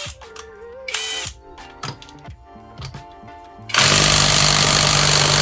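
Background music, then about four seconds in a Panzer PTIW-1180S 18 V brushless impact driver starts hammering loudly and steadily on a bolt set to 130 newton metres.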